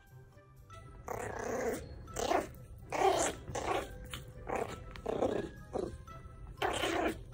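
A dog growling in about eight short, rough bursts, starting about a second in, typical of play-growling while grabbing at a toy. Background music plays underneath.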